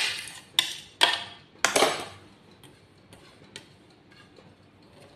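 Kitchen utensils and dishes clattering: four sharp clanks in the first two seconds, the last one longer, then a few faint ticks.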